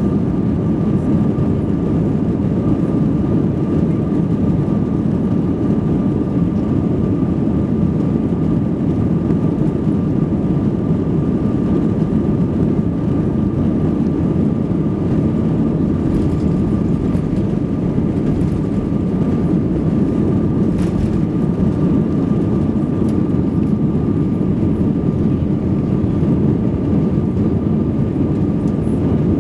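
Airbus A319's jet engines at takeoff thrust, heard in the cabin over the wing: a steady loud roar with a constant high whine, through the takeoff roll and lift-off.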